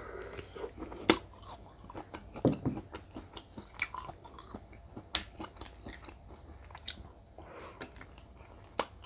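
Close-miked chewing of giant river prawn claw meat: soft wet mouth noises and smacks, broken by a few sharp clicks.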